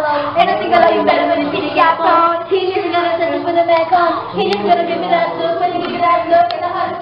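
Young female voices singing a melody together, with a couple of sharp clicks partway through.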